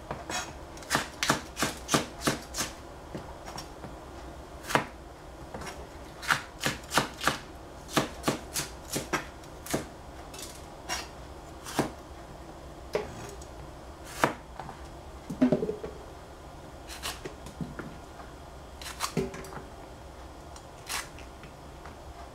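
Kitchen knife slicing small sweet peppers on a plastic cutting board: sharp knocks of the blade hitting the board, in quick runs of several cuts with short pauses between.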